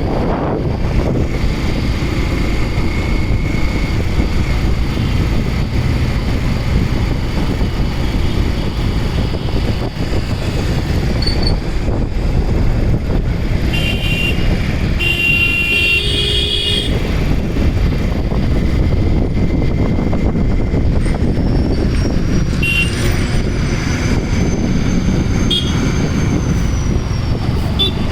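Traffic noise heard from a moving vehicle: a steady wind and road rumble, with vehicle horns honking several times about halfway through and a few short honks near the end.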